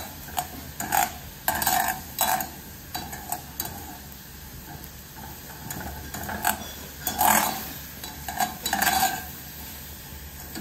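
Wire spider skimmer scraping and clinking against the inside of a nonstick pot in irregular short bursts as squid is scooped out, loudest a little past the middle.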